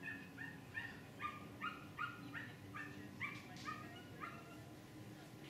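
A Staffordshire bull terrier giving a rapid string of high-pitched yelping barks, about three a second, that stops about four seconds in.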